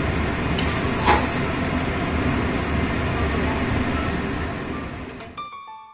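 A spatula stirring thick palak paneer in a steel kadai over a steady low rumbling background, with one sharp clink of the spatula against the pan about a second in. The sound fades out near the end as soft piano music begins.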